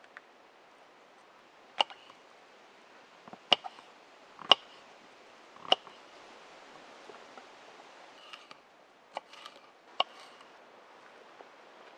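Kitchen knife slicing mushrooms and a yellow pepper on a wooden cutting board: about half a dozen sharp taps of the blade hitting the board at irregular intervals, with softer, quicker cutting taps near the end.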